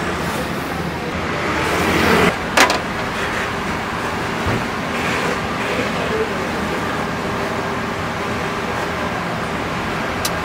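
Steady rushing background noise, like street traffic, with one sharp knock about two and a half seconds in.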